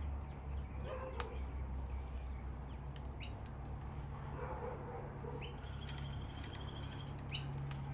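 Birds chirping briefly a few times, one holding a high whistle for about a second and a half past the middle, among scattered sharp clicks and taps, over a steady low hum.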